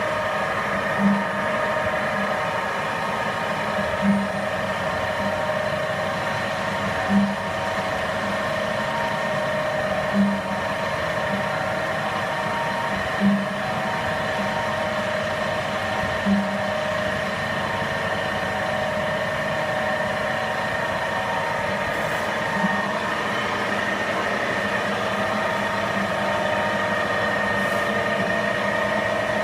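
Chevalier FCL 24x80 CNC flat-bed lathe running, its spindle drive giving a steady whine at constant pitch. Short low pulses sound about every three seconds for roughly the first half.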